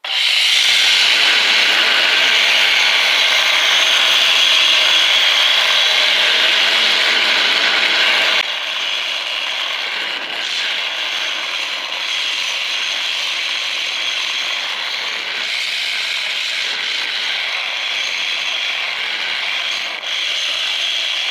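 Angle grinder with a grinding wheel cutting a groove into a scrap electric motor's housing: a loud, steady grinding noise that starts suddenly, gets somewhat quieter about eight seconds in, and runs on with a brief dip near the end.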